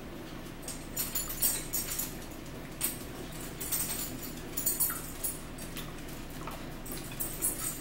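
Eating sounds at a dinner table: wet chewing and crisp mouth and fork clicks in short bursts every second or two, over a steady low hum.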